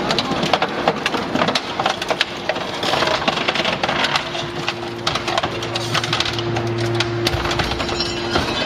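Scrap metal shear baler cutting scrap, with a dense clatter of sharp metal knocks, cracks and clinks as pieces are sheared and drop out below the blade. A steady hum joins about halfway through and stops shortly before the end.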